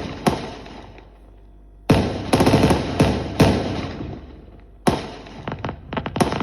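Fireworks display: aerial shells bursting with loud bangs that ring out and fade. A cluster of bangs comes about two seconds in, another bang near five seconds in, then a run of rapid crackling pops near the end.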